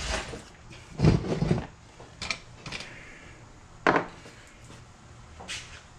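Hand tools being handled and set down: a series of separate clinks and knocks on metal and wood, loudest as a short clatter about a second in.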